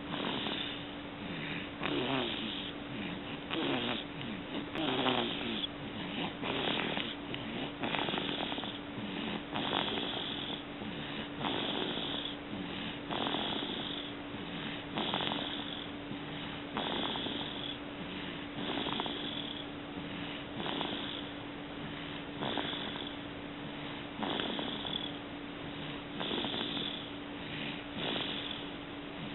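A four-month-old baby snoring in his sleep, a snore on each breath, about one every two seconds.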